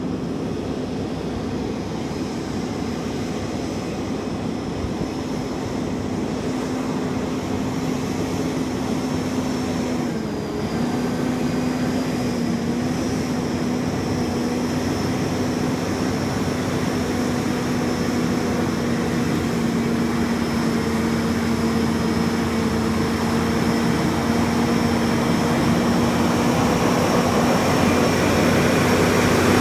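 Loaded Kenworth 850 off-highway logging truck's Detroit Diesel 12V71 twin-turbo two-stroke V12 running under load, a steady engine note with a high whine over it. The engine note dips briefly about ten seconds in and recovers, and the sound grows gradually louder as the truck approaches.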